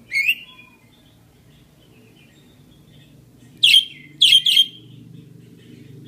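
Budgerigar chirping: one sharp chirp right at the start, soft chatter, then three loud chirps in quick succession about three and a half seconds in.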